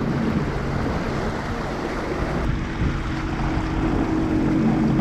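Sea-Doo jet ski under way at a steady speed: an even engine note over rushing water from the hull and spray.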